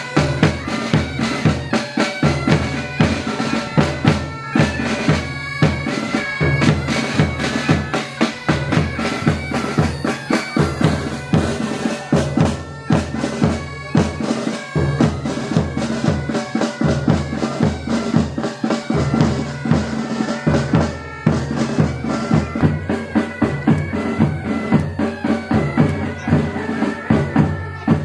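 Military pipe band playing: bagpipes sounding a melody over their steady drone, with drums beating a regular march rhythm. The playing stops right at the end.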